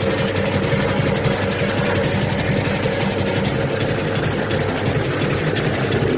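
Heavily distorted, buzzing cybergrind noise: a steady wall of distortion under a held droning tone, with no clear beat or voice.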